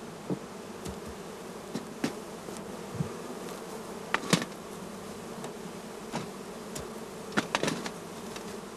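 Honeybees buzzing as they fly out of freshly opened hive entrances: a steady hum, with brief louder buzzes now and then.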